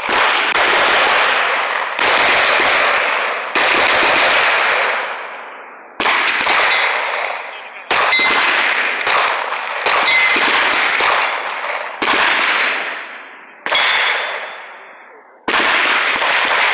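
Gunshots fired one after another at a shooting range, about one every two seconds, each with a long echoing decay.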